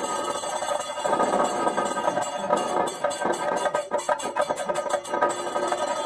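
Live Kathakali accompaniment music: sustained singing over drums and small cymbals, with a run of rapid, even strikes from about two and a half seconds in.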